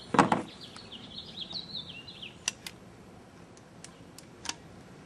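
A single shot from a pump-action 12-gram CO2 paintball pistol, a sharp pop just after the start. A bird then chirps for about two seconds, and a few sharp clicks follow.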